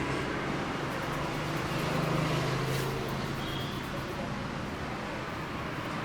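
Street traffic noise with a motor vehicle's engine running, its steady low hum fading out about halfway through.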